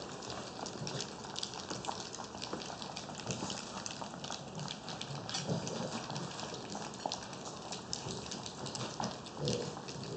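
French bulldog puppies moving about, with many quick irregular clicks and taps like claws on a hard floor, and a couple of short low sounds from the puppies around the middle and near the end.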